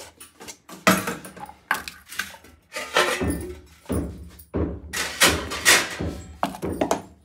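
A run of irregular knocks and thuds with some clatter, several a second and unevenly spaced, loudest about a second in and again around five to six seconds in.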